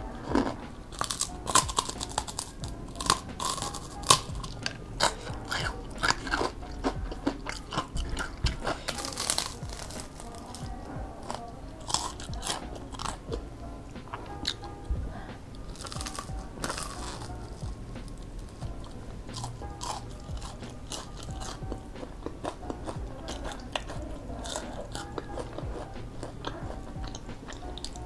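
Close-up crunching and chewing of crispy fried tempeh: quick, irregular crackly bites and chews, thickest in the first half and thinning to softer chewing later.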